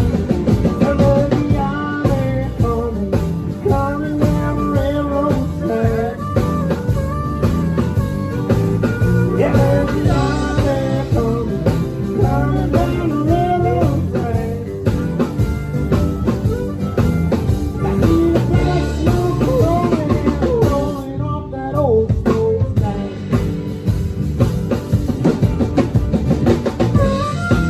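Country band playing a blues number live, a drum kit keeping a steady beat under guitar lines that bend and slide.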